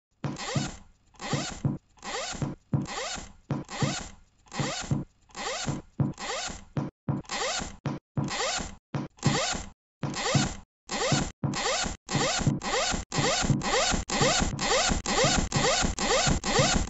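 A recorded rasping sound, like a zip or a scrape, repeated as separate strokes in a steady rhythm, each with a gliding pitch. The strokes come about one to one and a half a second, then quicken to about two a second about ten seconds in.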